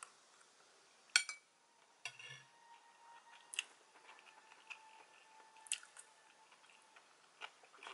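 Quiet eating sounds: chewing fried rice, with a metal fork clicking a few times against a ceramic bowl, the sharpest click about a second in.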